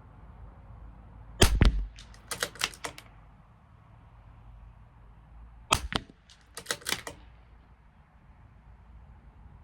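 Two shots from a CZ 457 LRP bolt-action .22 LR rifle firing SK Standard Plus, about four seconds apart, each followed about a second later by a quick run of metallic clicks as the bolt is worked to eject the case and chamber the next round.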